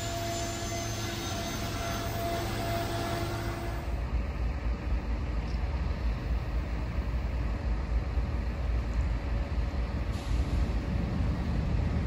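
Approaching freight train's diesel locomotives heard from a distance: a low rumble that grows louder as the train nears.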